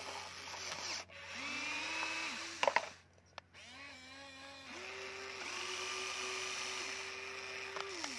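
Electric motors of a Huina radio-controlled toy excavator whining. The pitch rises, holds and falls again each time the arm, bucket or turntable moves, and the longest whine comes in the second half. A few sharp knocks come about two and a half seconds in.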